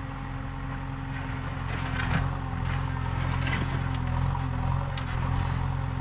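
JCB 3DX backhoe loader's diesel engine running steadily while the backhoe arm digs, growing a little louder about two seconds in. A few faint knocks come through over the engine.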